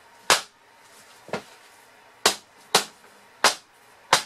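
Six sharp knocks of a hard object against a hard surface, spaced unevenly about half a second to a second apart.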